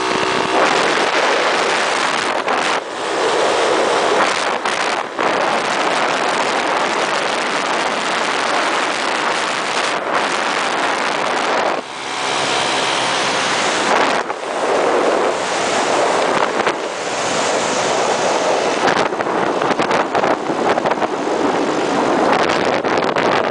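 Wind rushing over the microphone of a camera on a moving scooter, a loud steady rush that dips briefly a few times, with the scooter's engine low beneath it.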